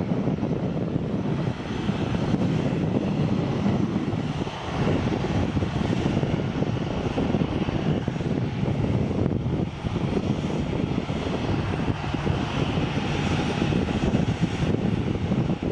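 Boeing 737's turbofan engines running at low taxi power, a steady low rush with a fainter hiss above it.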